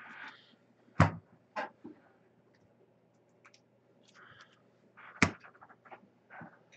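Trading card packs and box being handled on a table: two sharp knocks, about a second in and again past five seconds, with lighter clicks and a brief rustle of wrappers between.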